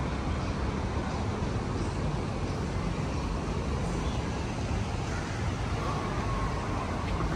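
City street traffic: a steady rumble of passing cars and engines.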